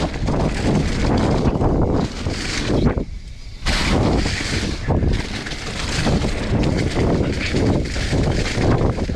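Mountain bike riding down a trail of dry fallen leaves: the tyres rolling and rustling through the leaf litter, with wind buffeting the camera's microphone. The noise eases briefly about three seconds in.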